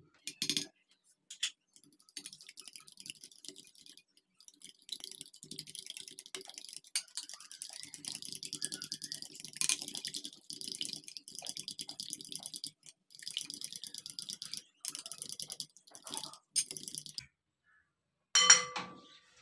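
Spoon stirring and whisking a wet yogurt hair-mask mixture in a ceramic bowl: quick, rhythmic scraping and clicking against the bowl. Near the end comes a single louder ringing clink of the spoon on the bowl.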